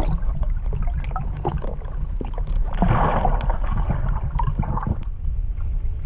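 Underwater river sound picked up by a submerged camera: a steady low rumble with scattered clicks and crackles, and a short rushing swell about three seconds in.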